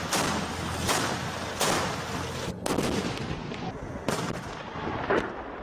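Gunfire in a combat zone: sharp shots about once a second, some heavier than others, over the low engine rumble of a passing armoured vehicle that fades about halfway through.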